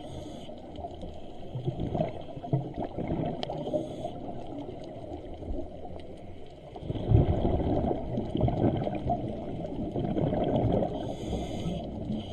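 Scuba diver breathing through a regulator underwater: a few short hisses of inhaled air and the bubbling of exhaled air, which grows louder from about seven seconds in.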